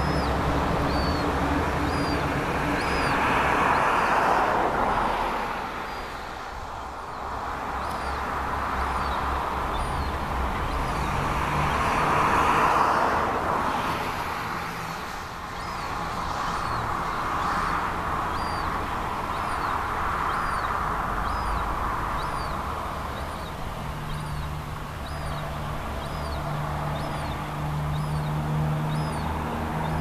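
Road traffic noise swelling and fading as vehicles pass, over a steady low hum, with a bird's faint short high peep repeated about once a second.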